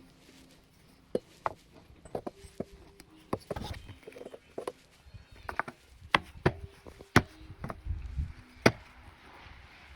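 Irregular sharp knocks and taps, about fifteen of them and louder in the second half, from hand-tool work on a broken garden rake.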